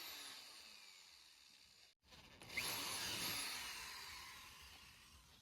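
Electric drill whirring at a hole in a fuel door actuator, then winding down with a falling pitch. It happens twice, the second run louder, with an abrupt cut between.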